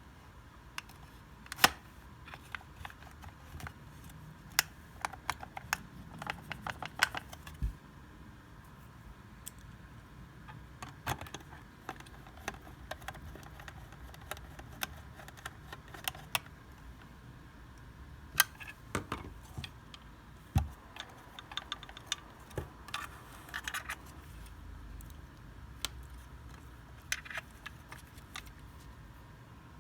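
Irregular small clicks and clinks, some in quick clusters, of hands handling small hard tools and parts on a workbench, over a faint steady hum.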